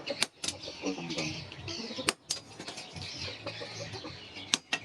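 A few sharp metal strikes, landing in quick pairs about two seconds apart, typical of hammer blows while forging a knife blade. Birds are calling in the background.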